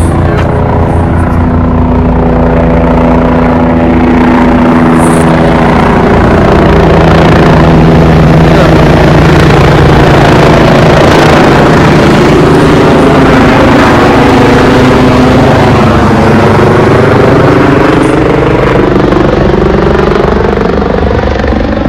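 A large engine running loud and close by. It holds a steady note at first, then its pitch dips and rises again about two-thirds of the way through, as a passing or manoeuvring heavy motor vehicle would.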